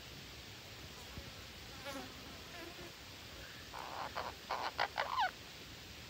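Green parakeets calling: a faint raspy call about two seconds in, then a quick run of loud, harsh calls between four and five seconds in, the last one falling in pitch.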